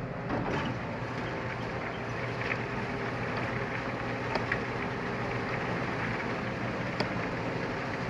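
Truck-mounted drum wood chipper running steadily while chipping a log fed through its spiked rollers, with a few short sharp cracks scattered through.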